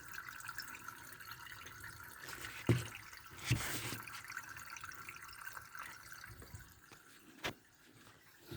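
Water draining and dripping out of a Sanken twin-tub washing machine's drain, now running freely once the blockage of dirt is cleared. A few short knocks sound over the steady flow.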